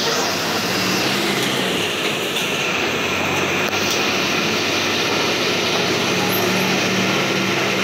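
City bus heard from inside the cabin at road speed: a steady engine hum under rushing tyre and wind noise.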